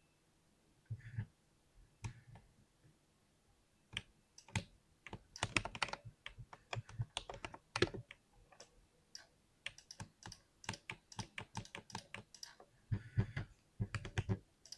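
Typing on a 60% keyboard: a few single keystrokes at first, then quick runs of key presses, with a short lull before a last burst near the end.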